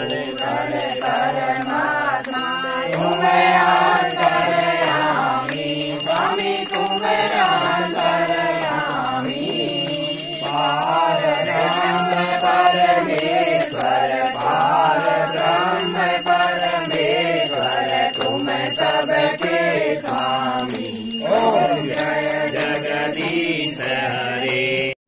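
Hindu aarti hymn sung, with electronic keyboard accompaniment and a bell ringing. It cuts off abruptly at the end.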